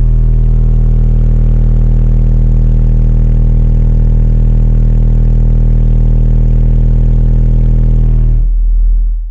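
Car audio subwoofer system playing a 40 Hz sine test tone at full power: a steady, very loud deep drone measuring about 146 dB on the bass meter. It cuts off at the end.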